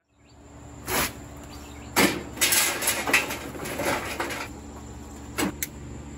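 A few knocks and a stretch of irregular clattering over a steady low hum.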